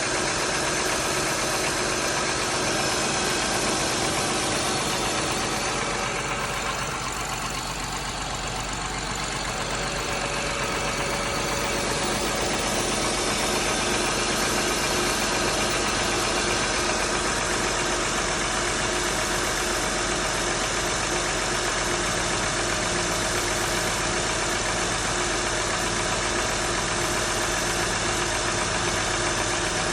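2004 Acura TL's 3.2-litre V6 idling steadily after a cold start, with a knocking noise in its running, heard most at the front and back of the cylinders, which the owner wonders is a sign the valves need adjusting.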